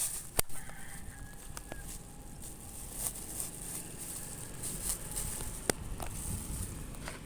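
A rooster crowing faintly, one drawn-out crow about a second in, over steady outdoor hiss, with a few sharp clicks, the loudest just after the start.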